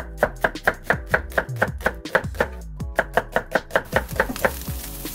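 Chef's knife slicing half an onion on a wooden cutting board, knocking on the board about five times a second, with a short pause midway. The strokes stop near the end.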